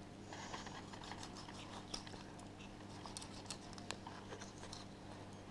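Faint, scattered small clicks and crackles of a kitchen knife cutting along a flathead's backbone on a plastic cutting board, over a steady low hum.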